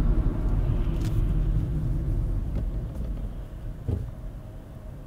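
Road and engine rumble of a 2006 Kia Picanto 1.1 on the move, dying away steadily as the car slows down.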